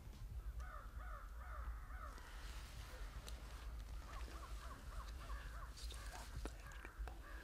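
Birds calling in two runs of quick repeated notes: one in the first two seconds, the other from about four to six seconds in. A few light clicks are heard between them.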